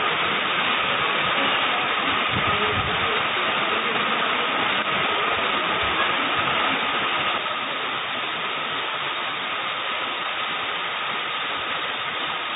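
Steady rushing noise of a wide flooded river in spate, with a faint steady high whine underneath. The noise drops a little in level about seven seconds in.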